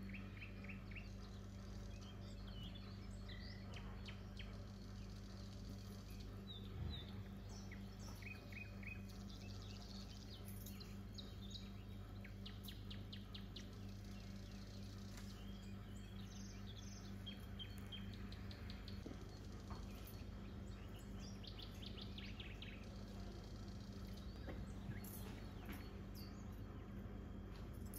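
Birds chirping and trilling faintly, in short quick runs of notes, over a steady low hum.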